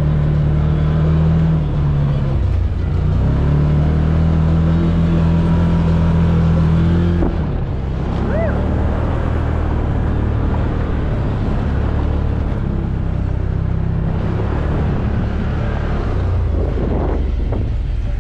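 Can-Am Commander UTV's engine running steadily under load as it drives up a snowy trail, its pitch dipping briefly about two seconds in. After about seven seconds the engine note is harder to pick out under a rougher rumble.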